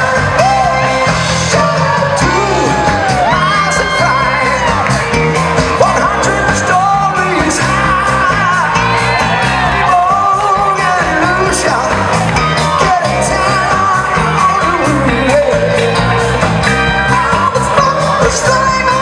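Live funk band playing loudly: a lead singer belting and shouting over drums with a steady beat, electric guitars, bass and keyboard.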